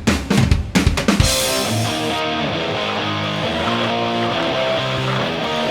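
Intro music: a few drum hits about a second in, then a steady band backing with guitar.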